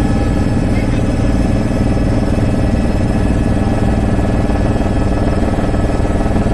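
Helicopter engine and rotor noise heard from inside the cabin during flight: a loud, steady drone with many held tones over a heavy low rumble.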